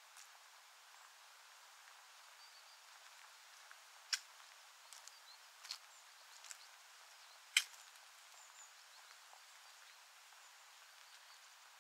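Faint outdoor hiss with a few short, sharp clicks; the two loudest come about four and about seven and a half seconds in.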